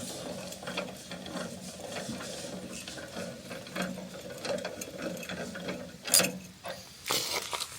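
Ratchet wrench clicking as it turns an adjustment bolt to lower the front of a sawmill track. There is a sharper knock about six seconds in and a louder clatter near the end.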